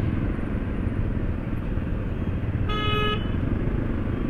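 Steady low road-traffic rumble heard while riding in city traffic, with one short vehicle horn toot about three seconds in.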